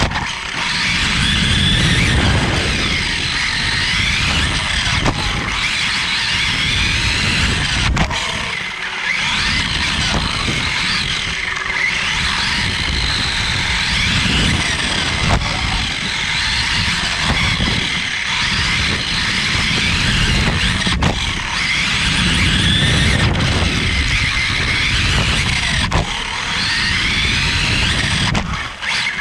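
Onboard sound of a Team Associated 1/10-scale electric off-road buggy racing: the motor and drivetrain whine rises and falls in pitch as the throttle goes on and off. Tyre rumble and hiss from the dirt run under it, with occasional sharp knocks.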